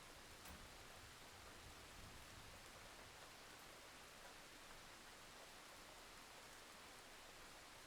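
Faint, steady rain hiss with no distinct drops or thunder.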